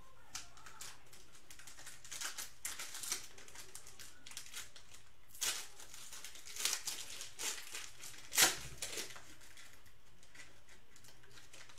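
Foil wrapper of a Panini Mosaic trading-card pack crinkling in irregular bursts as it is handled and torn open, with the sharpest crackle a little past the middle.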